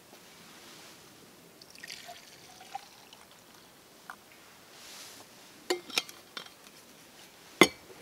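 A drink trickling as it is poured from an insulated steel bottle into a small cup. About six seconds in come a few clicks as the bottle's cap goes back on, and near the end a sharp knock, the loudest sound, as the bottle is set down on the wooden bench.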